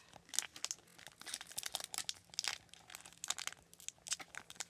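Foil wrapper of a trading-card booster pack crinkling in irregular crackles as it is squeezed and pulled at by hand, without tearing open.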